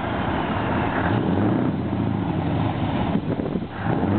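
Heavy truck's diesel engine running at low revs with a deep, steady note as the tractor unit and trailer creep forward, dipping briefly a little after three seconds in.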